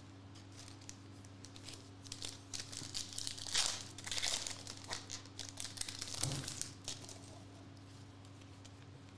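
Foil trading-card pack wrapper being torn open and crinkled by hand, in a run of rustling from about two seconds in to about seven seconds in, loudest near the middle, over a steady low hum.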